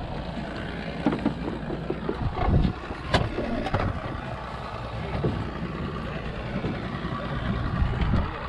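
Steady rumbling noise of a small fishing boat out on open water, with a dull thump about two and a half seconds in and a couple of sharp knocks soon after.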